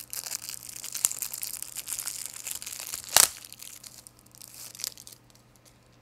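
Plastic packaging crinkling and tearing as it is pulled off a model's display-stand base. One loud sharp crackle comes about three seconds in, and the rustling dies away after about five seconds.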